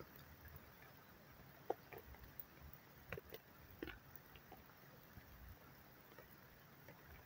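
Near silence in light rain: a faint hiss with a handful of soft, irregular drip ticks as raindrops fall.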